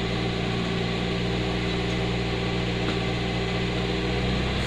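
Car engine idling steadily at operating temperature, a constant hum heard from inside the car.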